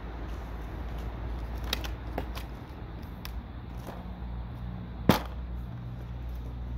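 A plastic car bumper cover being handled and turned over on the pavement: scattered clicks and knocks, with one sharp, loud knock about five seconds in, over a steady low rumble.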